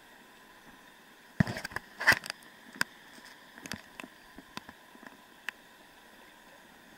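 Water splashing as a brown trout is held in a shallow mountain stream: two louder splashes about a second and a half and two seconds in, then smaller splashes and drips that die away, over a faint steady hiss of running water.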